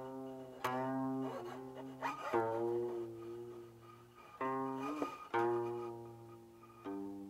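Guqin, the seven-string Chinese zither, played solo: slow plucked notes, each ringing and fading, several gliding up or down in pitch as the left hand slides along the string.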